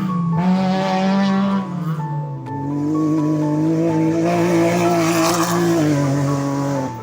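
Rally car engine held at high revs in two long pulls, with a short dip between them, over background music.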